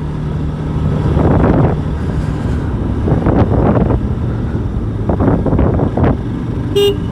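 Motorcycle engine running steadily while riding, with wind buffeting the microphone in uneven gusts. A brief pitched tone sounds just before the end.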